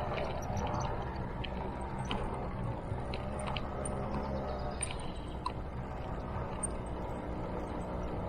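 Motor scooter engine running at a steady speed, a constant low hum.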